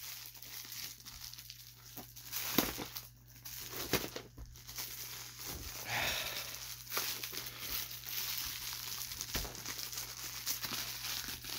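Plastic Amazon Prime mailer crinkling and rustling in the hands as it is pulled and torn at, with scattered sharp crackles; the tough plastic will not tear open by hand.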